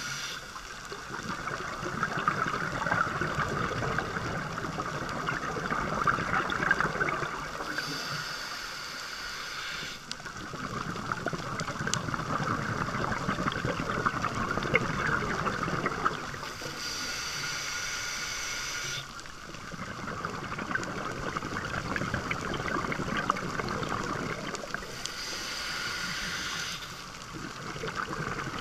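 Scuba diver breathing through a regulator underwater: a hiss on each inhale about every eight seconds, between longer stretches of bubbling, gurgling exhales.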